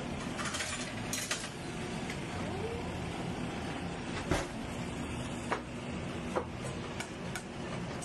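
Metal kitchen utensils clinking and clattering as a drawer of them is rummaged through, followed by a few scattered single knocks, the loudest a little after four seconds in, over a steady low hum.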